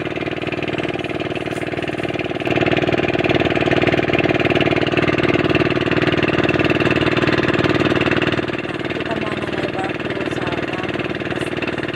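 Pumpboat engine running steadily with a rapid hammering pulse; it gets louder about two and a half seconds in and eases back near eight and a half seconds.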